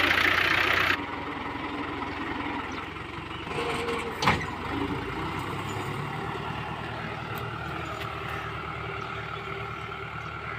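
Tractor diesel engine running steadily while pulling a seed drill. It is loud and close for the first second, then steadier and quieter. There is a single sharp knock about four seconds in.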